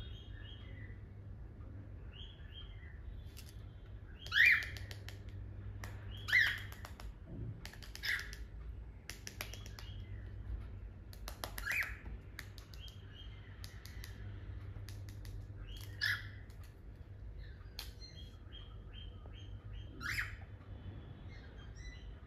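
Cockatiels calling: six loud, short, sharp calls a few seconds apart, with softer short chirps in between.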